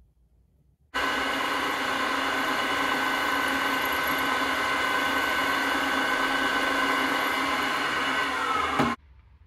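Drill press motor running steadily while the bit drills a hole into a cast iron casting, a machine hum with a high whine. It starts suddenly about a second in and cuts off shortly before the end.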